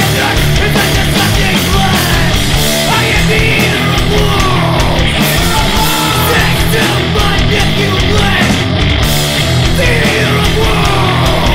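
Hardcore punk song playing loud, with a dense wall of distorted guitars, bass and drums.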